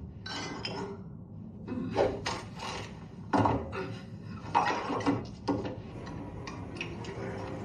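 A handful of separate clinks and knocks of glass bottles and tableware being handled, spaced irregularly, the loudest about three and a half and four and a half seconds in.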